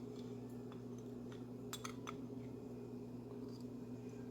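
A few faint light clicks of a spoon against a bowl as spices go onto the chicken, over a low steady hum.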